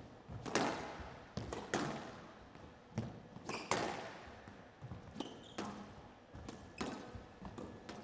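Squash rally: the ball cracks off the rackets and walls about once a second, with a few short high squeaks of shoes on the court floor.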